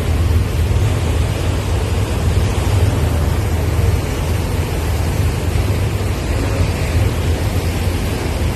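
Ferry's engines running in a steady low drone, under the even rushing noise of the churning wake.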